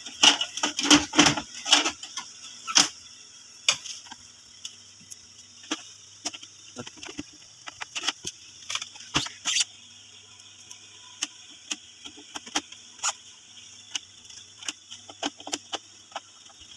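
Plastic printer housing being handled and fitted back together: a quick run of sharp clicks and knocks in the first couple of seconds, then scattered single clicks and taps, over a faint steady low hum.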